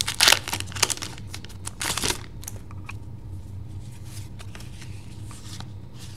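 Pokémon TCG booster pack's foil wrapper crinkling and tearing in a run of crackly bursts over about the first two seconds. Faint ticks of cards being handled follow.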